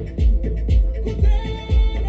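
Dance music with a heavy bass kick about two beats a second, a held higher note coming in about halfway through.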